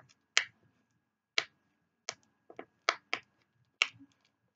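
Puffy princess stickers clicking as a finger presses down on them, several sharp clicks at irregular intervals.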